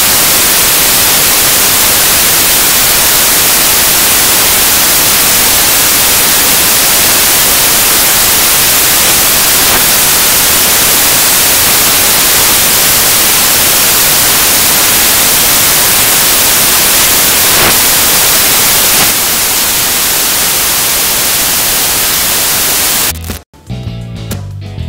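Loud, steady static hiss with no tone in it; it cuts off suddenly near the end, and music with a bass line and guitar starts.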